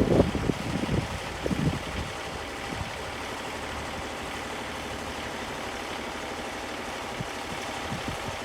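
An engine idling steadily, with a few knocks and bumps in the first two seconds.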